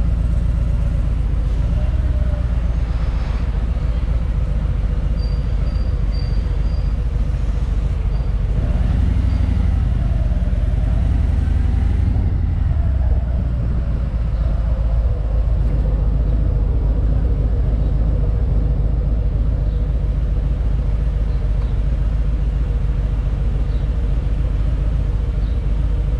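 Motorcycle engine running steadily at low speed in slow stop-and-go traffic, heard from the rider's seat, with a deep pulsing note.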